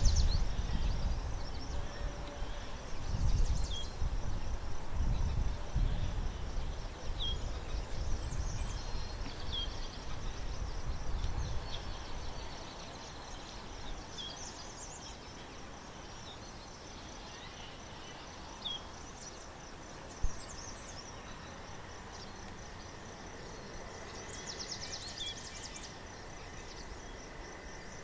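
Outdoor natural ambience: a steady high insect trill runs throughout, with short high bird chirps every second or two. A low rumble fills roughly the first twelve seconds and then fades.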